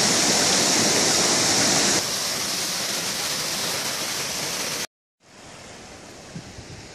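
Waterfall rushing, heard across several cuts. It is loud for about two seconds, a little quieter until about five seconds in, drops out briefly, then returns as a quieter, more distant rush.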